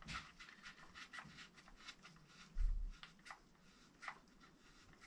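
Faint rustling and small clicks of gloved hands fitting a cable and its plastic gland into an air compressor motor's terminal box. There is a dull low thump about two and a half seconds in.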